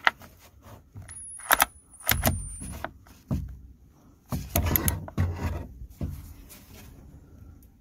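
Metal clicks and rattling from a socket and extension on the oil drain plug as it is tightened, with a few sharp clicks early on and rattling bursts in the middle.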